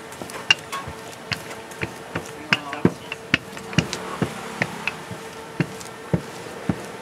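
Wooden rolling pin knocking and clacking against a stainless steel table as spring onion pancake dough is rolled out: sharp knocks, irregular, about two a second. A steady hum runs underneath.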